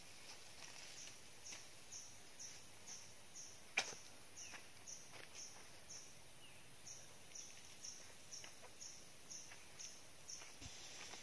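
Faint, steady chirping of an insect, evenly repeated about twice a second. One sharp click a little under four seconds in, and a few faint rustles.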